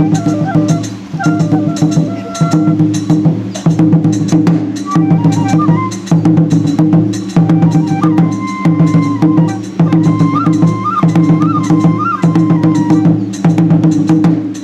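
Japanese folk ritual dance music: a high flute melody over steady, rapid drumming, with a few trills on the flute about ten seconds in.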